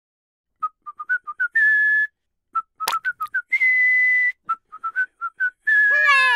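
Intro jingle of a whistled tune: three phrases of short quick notes, each closing on a long held note, with a sharp pop about three seconds in. The last held note drops into a falling pitch glide at the end.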